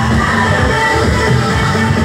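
Loud electronic dance music with a heavy bass line.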